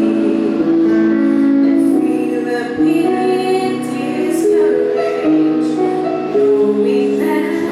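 Gospel vocal group singing a praise song in harmony, several voices holding long chords that change every second or so.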